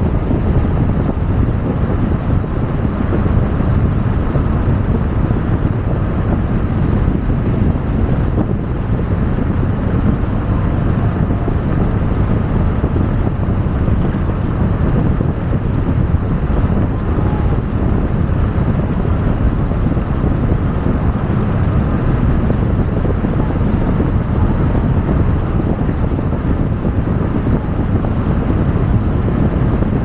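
Steady low road noise of a car driving at speed on asphalt, tyres and wind heard from inside the car.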